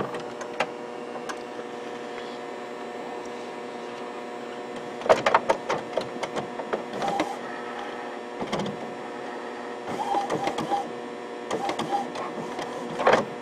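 Epson WorkForce inkjet printer's mechanism running as it checks the reset ink cartridges: a steady hum with bursts of clicks and rattles about five seconds in, again around eight and a half, ten to twelve and thirteen seconds.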